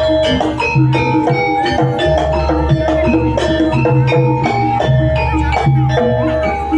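Javanese jaranan ensemble music: struck metal gong-chimes play a quick, steady run of ringing notes over drum strokes and a deep, swelling low gong or bass tone.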